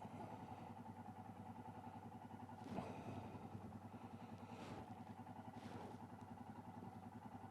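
Royal Enfield Himalayan's single-cylinder engine idling steadily with an even, fast thump, and a brief louder rustle about three seconds in.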